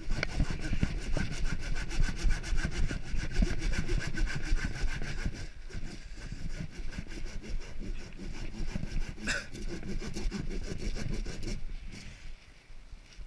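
Power sander running against the rough surface of a log, a rapid steady rasping that eases off near the end.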